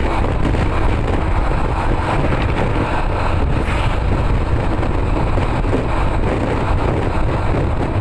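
Steady noise of a vehicle on the move, a deep rumble of road and engine with wind buffeting the microphone. It runs evenly, with no horn.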